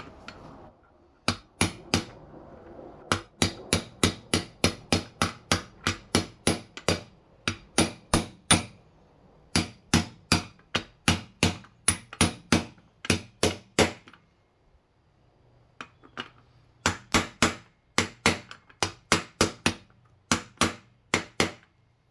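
Hammer blows on a socket used as a bearing driver, tapping a sealed ball bearing into the dirt bike's rear wheel hub by its outer race. Sharp metallic strikes, about three to four a second in long runs, with short breaks and a pause of about two seconds in the second half.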